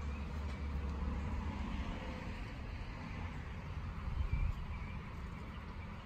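Steady low outdoor rumble, with a few faint, short high-pitched chirps.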